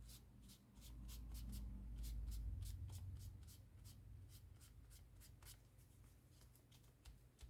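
Faint, quick rubbing strokes on paper, about four a second: excess decoupage glue being wiped off a journal page. A low handling rumble swells between about one and three seconds in.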